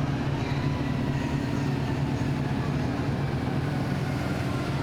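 Car engine running steadily, a low droning sound with no rise or fall in revs.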